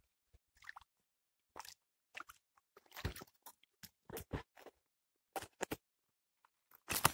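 A hooked fish splashing and thrashing at the water's surface as it is hauled up on a line: a run of short plops and knocks, the loudest about three seconds in.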